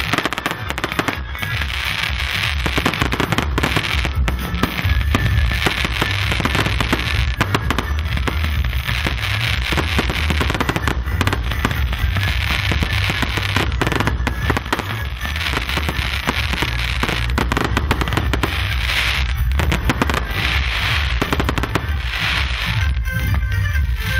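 Fireworks display going off without pause: a dense run of bangs and crackling pops, with music playing underneath.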